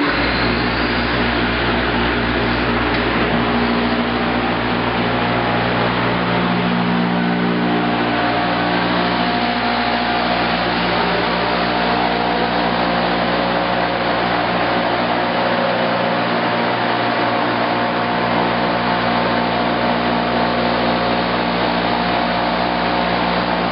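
Timesavers Vision orbital twin-pad and rotary-brush sanding machine running, a loud, even whir with a steady hum underneath.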